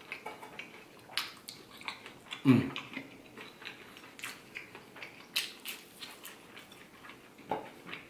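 Close-up eating sounds: mouth chewing with scattered sharp clicks of a fork against a plate. About two and a half seconds in comes the loudest sound, a short low sound falling in pitch.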